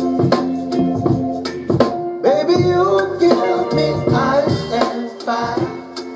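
A recorded song with drums and percussion playing through a home-built stereo preamplifier and power amplifier that are being tried out on music.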